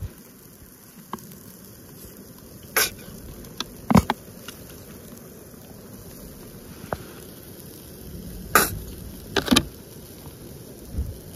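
A handful of short, sudden squirts and sputters from a plastic squeeze bottle of mayonnaise being squeezed onto bread rolls, with a knock or two on a wooden cutting board.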